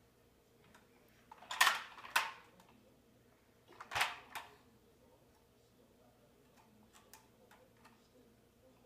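Hard plastic toy tractor knocking and clattering as it is bumped against the floor: a pair of knocks around one and a half to two seconds in, another pair around four seconds, with light clicks in between.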